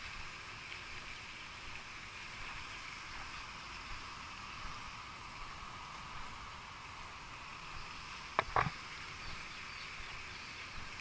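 Steady outdoor insect chorus, a continuous even drone, with two sharp knocks in quick succession about eight and a half seconds in.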